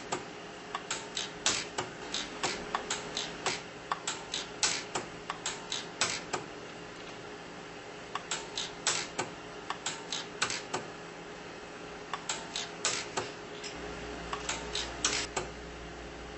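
Orion 150s pulse arc welder firing pulse after pulse as sterling silver fill wire is welded onto a titanium eyeglass frame. Each pulse is a sharp snap, and they come in quick irregular runs of several a second, with a pause of a second or two a couple of times.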